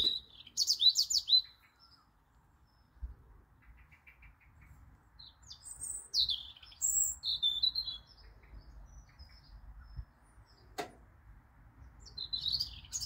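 Garden birds chirping and twittering in several short bursts of high, quick phrases, with one sharp click about eleven seconds in.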